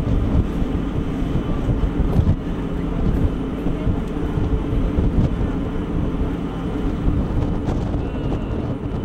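Wind buffeting the microphone on the open deck of a ship under way, over a steady low drone.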